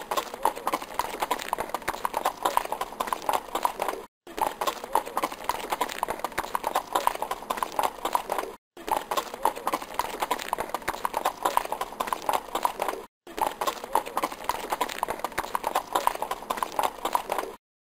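Horse hoofbeats clip-clopping in a quick, steady rhythm. It is a short stretch of about four and a half seconds, repeated with a brief dropout between repeats, and it stops just before the end.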